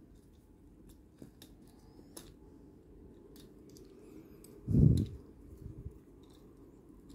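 Small plastic toy figure parts clicking and rattling as they are handled and moved at their joints, with one dull thud about two-thirds of the way through, the loudest sound.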